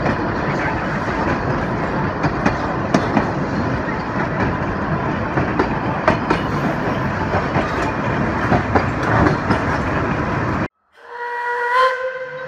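Narrow-gauge steam train running, heard from the compartment directly behind 1901 NA class 2-6-2 tank locomotive No. 6: a steady rumble with the clicking of wheels over rail joints. It cuts off abruptly near the end, and a steam locomotive's whistle then blows one held chord.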